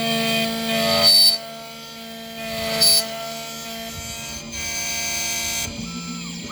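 Xhorse key-cutting machine's motor whining steadily as its cutter mills a car key blank, with louder rasping bursts when the cutter bites into the metal: at the start, about a second in, near three seconds, and again about five seconds in.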